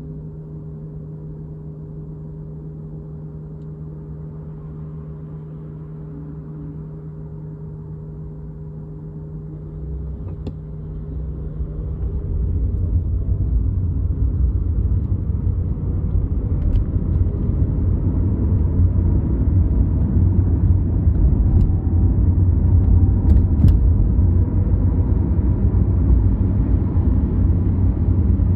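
In-cabin sound of a BMW i8 hybrid on the road. A steady hum with two held tones runs for about ten seconds. Then the low engine and road rumble swells between about ten and twelve seconds in and stays loud as the car gets moving, with a few faint clicks in the second half.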